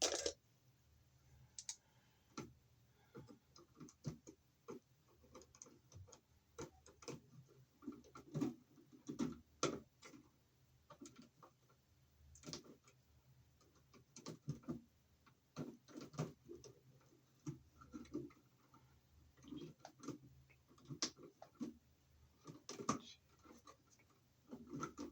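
Irregular light clicks, taps and small rattles of electrical wires and their connector being handled and pulled apart in a junction box, as a 12-gauge and a 14-gauge wire are disconnected.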